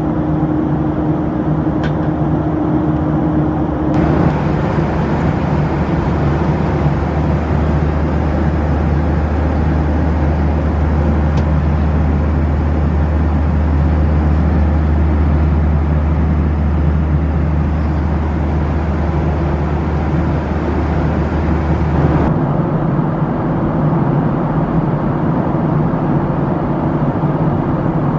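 Steady jet cabin noise inside a Boeing 737-700 in cruise: rushing airflow over the fuselage and the hum of its CFM56-7B turbofans. The hum and hiss shift abruptly about four seconds in and again about three-quarters of the way through.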